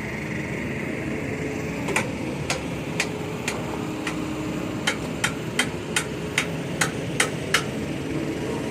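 Repeated sharp knocks like hammer blows, about a dozen in two runs, the second run quicker, over the steady running of a truck's diesel engine.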